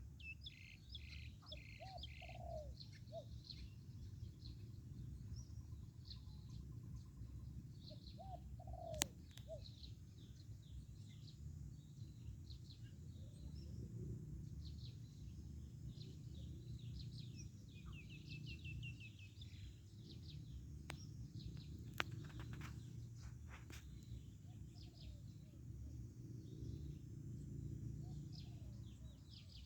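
Male spotted dove cooing a few faint, short phrases of its 'one kuk' crowing song, with smaller birds chirping and twittering over a low background rumble. Two sharp clicks stand out, the first about nine seconds in and the second a little after twenty seconds.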